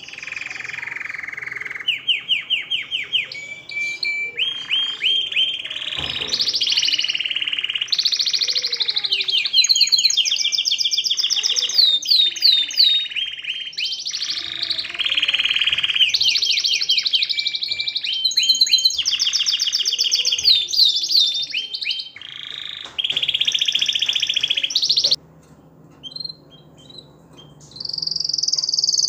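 Male domestic canary singing its breeding song: a long run of phrases, each a fast trill of repeated notes at one pitch before switching to a new note. It breaks off near the end for a few seconds, then starts a high trill.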